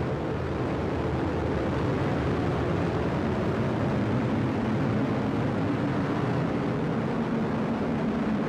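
Atlas V rocket climbing away just after liftoff: the steady roar of its RD-180 main engine and two solid rocket boosters.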